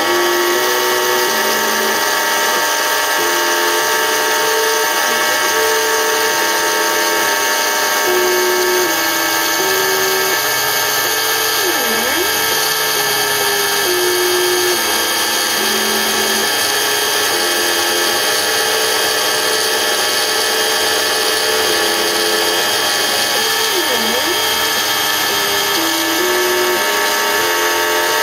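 Homemade CNC router engraving into 4 mm acrylic: the spindle runs with a steady high whine, while a lower motor tone jumps between pitches every second or so as the axes change direction, twice dipping and rising quickly.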